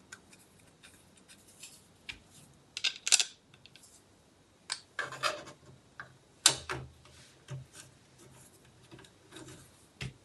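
Irregular clicks, taps and rubbing of a 3D-printed plastic holder being handled and pressed into place against a 3D printer's frame. The loudest knocks come about three seconds in and again around six and a half seconds.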